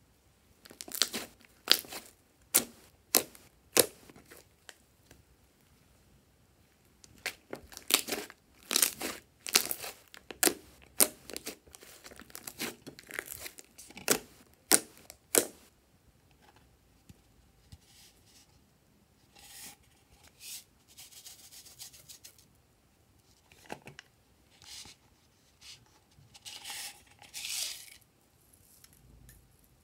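Red slime being stretched, folded and pressed by hand in a glass dish, making a quick run of sharp pops and clicks through the first half, then softer squishing. Near the end there is a short rustle as sequins and glitter are tipped onto it.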